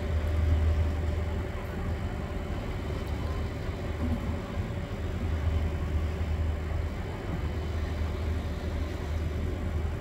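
Engines running at a distance, a steady low drone without change.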